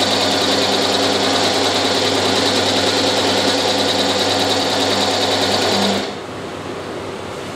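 Circular knitwear linking machine running with a steady hum and a high whine, like a sewing machine; it stops suddenly about six seconds in, leaving a quieter steady hiss.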